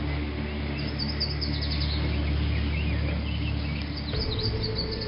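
Songbirds chirping, many short high calls, over a low, steady drone of background music that shifts near the end.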